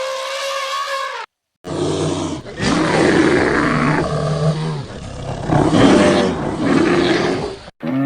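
A drawn-out pitched animal call ends about a second in; after a brief silence a large wild animal roars and growls in long, rough, deep bouts for about six seconds.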